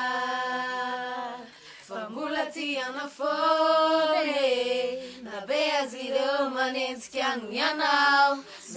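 A small group of girls singing together without accompaniment, in phrases with some long held notes.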